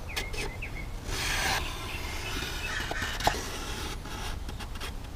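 Marker scratching along cardstock as an outline is traced inside a plywood box, with paper rustling about a second in and one light knock a little past three seconds.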